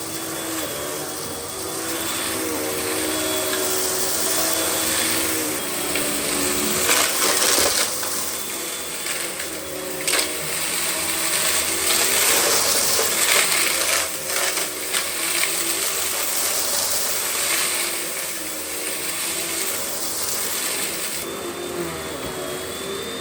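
Russell Hobbs Athena Pet vacuum cleaner running on carpet: a steady motor whine and airflow hiss whose pitch shifts a little as the head is worked, with scattered clicks and rattles.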